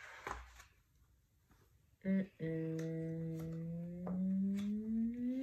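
A woman humming: a short note about two seconds in, then one long note held and slowly rising in pitch.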